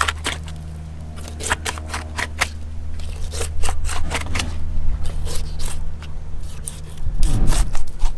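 Fillet knife crunching through a large permit's pin bones over the rib cage: a rapid, irregular series of sharp snaps and clicks. A steady low hum runs underneath, and a louder low rumble comes near the end.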